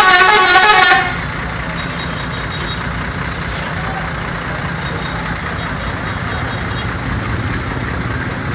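Bus telolet horn, a multi-tone musical air horn, plays a quick run of notes for about a second, very loud, then stops. A steady engine hum continues after it.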